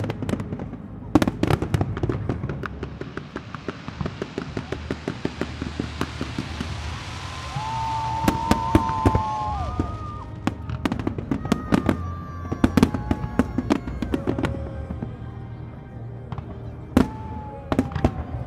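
Aerial firework shells bursting in rapid irregular bangs and crackles, with a rush of crackling around the middle. A few long held tones sound between about seven and thirteen seconds in and again near the end.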